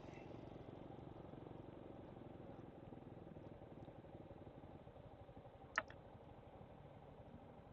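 Motorcycle engine idling faintly and steadily, with a single sharp click about six seconds in.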